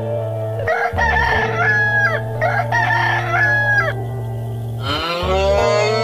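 A rooster crowing twice in a row, each crow about a second and a half long and ending on a held note. Near the end a cow starts to moo, its pitch rising.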